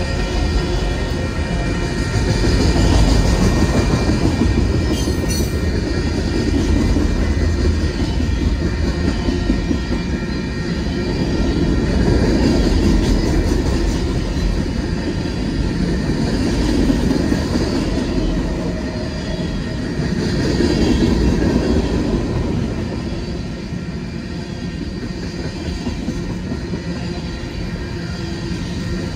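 Freight train of autorack and covered hopper cars rolling past close by: a steady low rumble and rattle of steel wheels on the rails, swelling and easing every several seconds.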